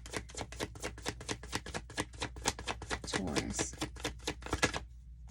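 Tarot cards being shuffled by hand: a fast, steady run of crisp card clicks that stops a little before the end.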